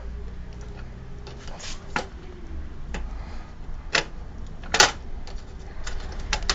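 Scattered clicks and knocks of a CD-ROM drive being worked loose from a computer's drive bay, the loudest a sharp clack near five seconds in.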